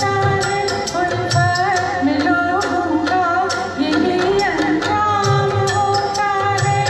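Music: a Hindi film song melody carried over tabla-style drum strokes, with a steady beat.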